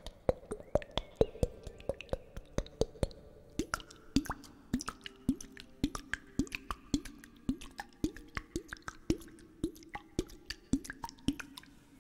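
Storm glass, a liquid-filled glass weather bottle, tapped in a quick steady rhythm of about two to three taps a second. Each tap gives a short ringing, plop-like tone, and the tone drops lower about three and a half seconds in.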